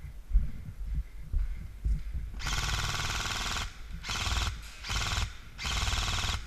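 Airsoft gun firing on full auto in four rapid bursts, the first about a second long and the others shorter, after a couple of seconds of low thumps.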